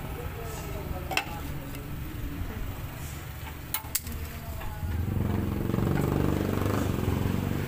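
Oxy-acetylene welding torch flame running with a steady hiss and low rumble, growing louder about five seconds in. A few sharp metallic clinks from the torch and metal being handled, near one second and near four seconds.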